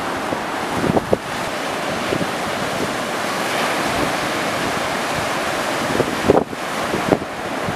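Ocean surf breaking steadily, with wind buffeting the microphone in a few short gusts.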